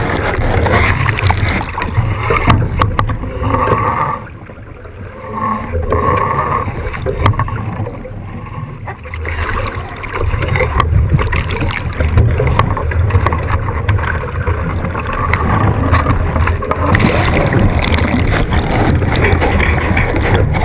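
Water rushing and splashing along the hull of an 18-foot racing skiff under sail, over wind buffeting an onboard action-camera microphone with a low rumble. The rush eases briefly about four seconds in and again about eight seconds in.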